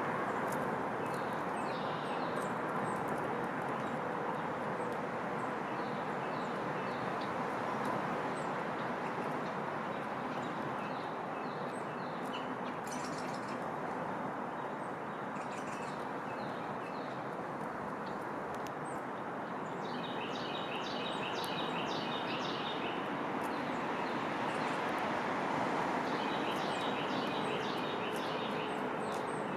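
Small songbirds chirping here and there over a steady outdoor background hiss, with a fast trilled song twice, about two-thirds of the way in and again near the end.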